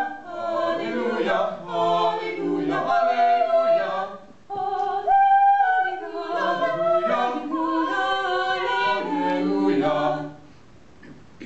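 Mixed-voice vocal quartet, three female voices and one male, singing a cappella in harmony. Near the middle one high voice holds a note alone for a moment, and the singing stops about ten seconds in.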